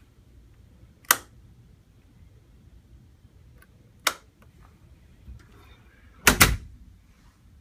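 A sharp click about a second in and another about four seconds in, then a louder double knock near the end as a door is shut.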